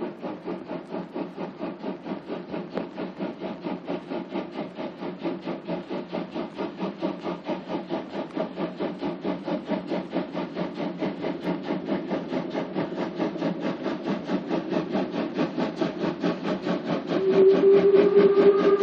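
German class 01 steam locomotive exhaust: rapid, evenly spaced chuffing that grows gradually louder as the train approaches. About a second and a half before the end, a steam whistle starts to blow one steady, slightly rising tone.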